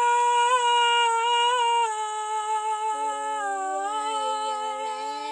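A woman's voice holding one long wordless sung note, steady at first, then dipping a little and wavering. A second, lower held tone joins about three seconds in.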